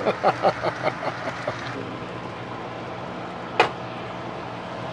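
Plastic spoon stirring chili in a stainless steel pot: a quick run of short scraping strokes, about four a second, then a single sharp clack about three and a half seconds in, over a steady low hum.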